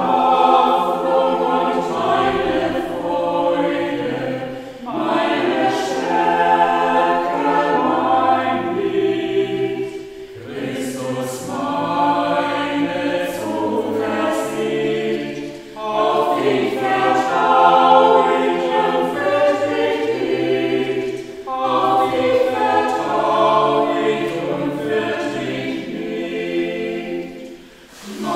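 Small mixed church choir of about six men's and women's voices singing a cappella, in several long phrases divided by brief breaths.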